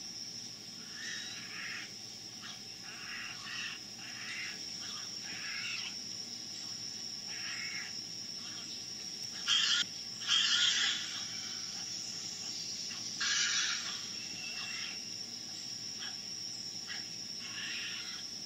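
Outdoor ambience: a steady high-pitched whine with irregular short rushes of noise, three louder ones near the middle.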